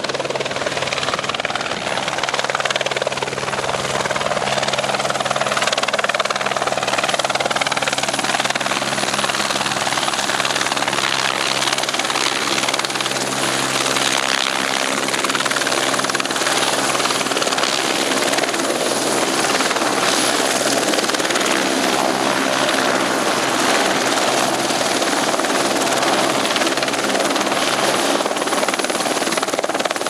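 Eurocopter AS350 single-turbine helicopter with a three-blade main rotor, running steadily as it comes down into a low hover and sets down on its skids. Gusty wind buffets the microphone.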